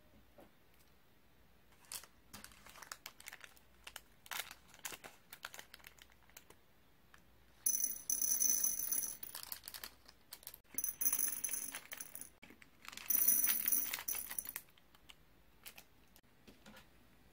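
Small plastic candy packets crinkling and being handled. Then three pours of small candy beads clattering into ceramic bowls, each lasting a second or two, with a high ringing from the bowls.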